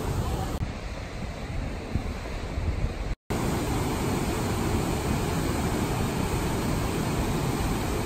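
Steady rush of river water over rocks. After a brief dropout about three seconds in, the fuller rush of the Orkhon waterfall pouring into its pool, with wind on the microphone.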